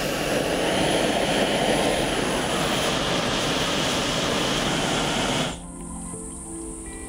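Loud steady rushing hiss of a red-hot steel part being heat-treated and quenched in oil. It cuts off abruptly about five and a half seconds in, leaving soft background music.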